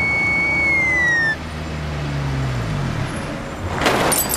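A car speeding past: a high steady tone and the engine note both drop in pitch as it goes by. A loud rushing whoosh about four seconds in comes as it accelerates.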